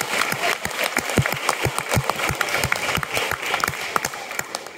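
Audience applauding, with some loud claps close by; the clapping thins out and fades near the end.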